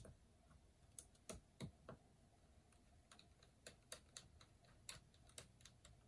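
Faint, irregular small clicks and ticks of a Phillips screwdriver and a small screw as the screw is set and turned into a MacBook Pro's drive-bay bracket.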